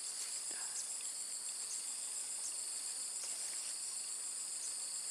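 Steady, high-pitched chorus of insects in the vegetation.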